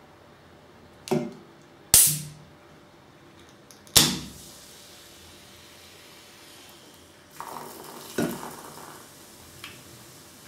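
Aluminium soda can being opened by its ring-pull: three sharp clicks and pops with short hisses of escaping gas, about one, two and four seconds in. A softer stretch of fizzing noise follows later as the cola starts to pour.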